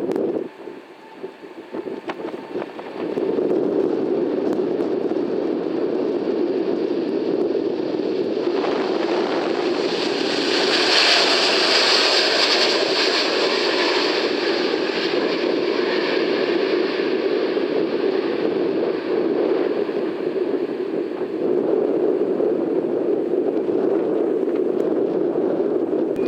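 Jet airliner passing close by: a steady engine rush that swells to a loud, hissing peak about halfway through, with a faint falling tone as it goes past, then eases off again.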